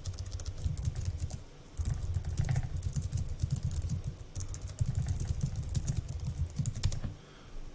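Typing on a computer keyboard: a quick run of key clicks with a couple of brief pauses, stopping near the end.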